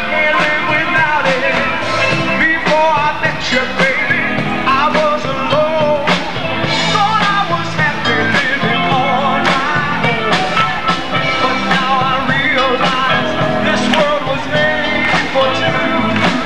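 Live band playing contemporary pop music through a PA: a male lead singer over a steady drum beat and keyboards.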